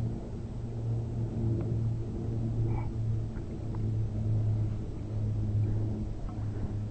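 An engine running steadily with a low, even hum, getting a little louder toward the end.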